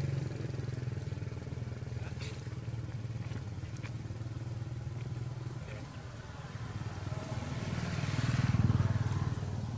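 A motorbike engine running steadily close by, growing louder about eight seconds in as it passes, then easing off.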